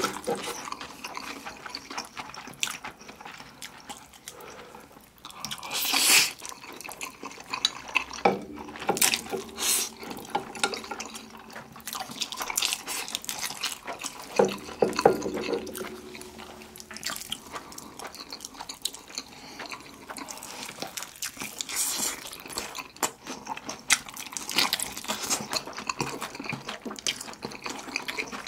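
Close-miked eating: jjapagetti noodles slurped and chewed with wet, sticky smacking mouth sounds, and sauced fried chicken drumsticks bitten into. A few louder slurps stand out about six and ten seconds in.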